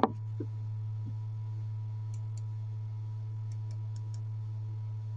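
Steady low hum of a YG300 mini LED projector running, with a faint higher tone over it. A brief sharp click comes right at the start, and a few soft ticks fall around the middle.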